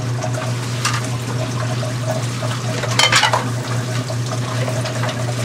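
Dishes being handled in a kitchen sink: water sloshing, with scraping and clinking of a bowl, and a louder clatter about three seconds in. A steady low hum runs underneath.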